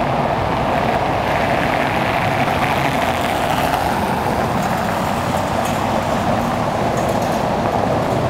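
Steady street traffic noise of cars driving on a wet cobblestone road, with a Tatra-Yug K1 tram approaching slowly on its rails.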